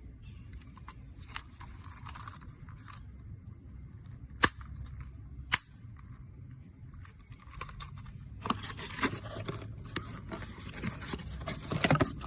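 Handling noise from a residual-current circuit breaker and its packaging: rustling and scraping, two sharp clicks about a second apart near the middle, then busier rustling and clatter toward the end.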